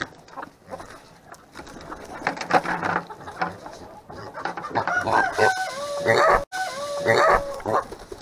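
A flock of roosters clucking and squawking, then from about five seconds in several long, stepped cock-a-doodle-doo crows, one after another.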